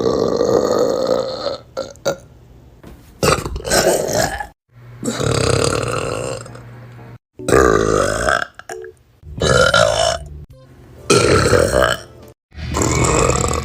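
A run of loud, drawn-out burps from young women, about six of them one after another, each lasting one to two seconds, with abrupt cuts between them.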